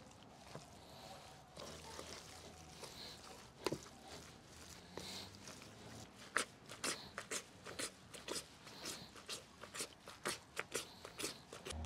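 Minced liver and fat mixture being handled in a steel bowl: faint, irregular wet clicks and crackles, thickening to several a second over the second half.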